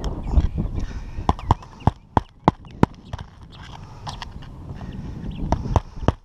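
Hammer driving roofing nails into a replacement asphalt shingle: a run of about six sharp strikes roughly a third of a second apart, then a few more near the end.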